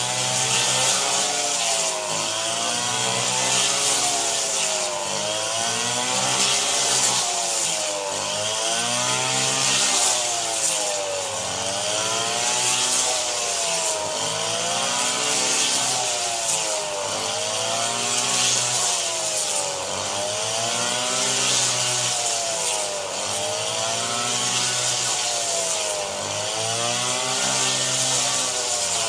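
A small petrol engine cutting rice, its pitch dipping and recovering in a regular rhythm about every two seconds as it takes the load of the stalks, over a steady hiss.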